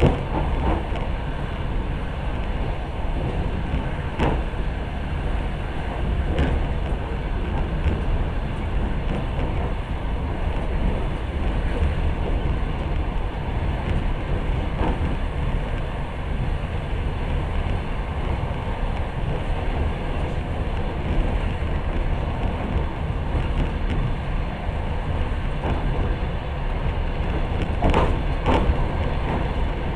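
Passenger train running along the track, heard from inside the carriage: a steady low rumble with a few sharp knocks from the wheels, two of them close together near the end.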